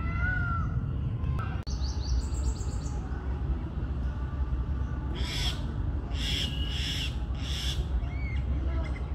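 Birds calling: a clear whistled note that rises and falls near the start, a quick high rattling chatter about two seconds in, then a run of four harsh rasping calls, over a steady low rumble.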